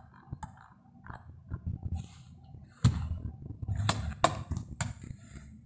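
Sharp clicks and light knocks over a low handling rumble, from fingers working the volume knob and buttons of a car stereo head unit. The loudest click comes about three seconds in, with a few more about four to five seconds in.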